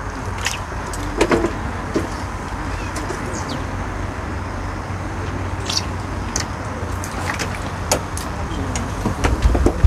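Steady low wind rumble on the microphone, with scattered light clicks and taps, growing busier and louder near the end.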